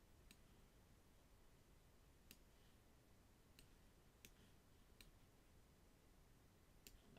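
Faint computer mouse clicks, about six spread irregularly over several seconds, over near-silent room tone.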